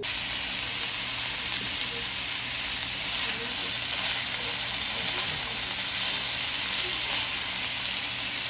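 Food frying in a pan: a steady sizzling hiss that starts abruptly and holds even throughout.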